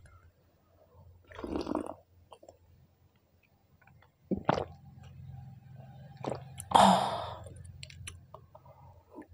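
Mouth and breath sounds of someone whose mouth is burning from extreme chilli heat: a puff of breath about a second and a half in, a couple of sharp clicks around four and a half seconds, and a loud burst of breath near seven seconds that fades away.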